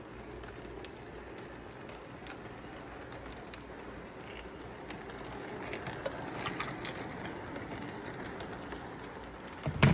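Model electric train, a Santa Fe F-unit diesel locomotive pulling freight cars, running around a curve of track: a steady whirring rumble with scattered light clicks, busiest around the middle. A sharp knock just before the end is the loudest sound.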